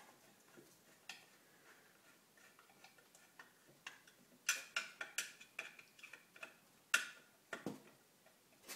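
Irregular light clicks and taps from hands and a screwdriver fastening the plastic motor cover on a mini lathe, with a quick run of them about halfway through and a few single louder clicks after.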